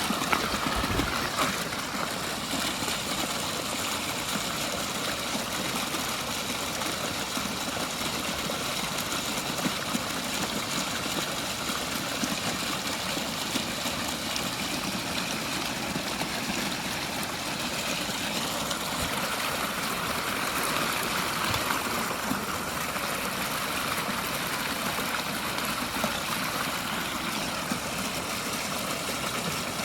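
Backyard pondless waterfall running: a strong stream of water pouring and splashing down several rock steps, a steady rushing sound.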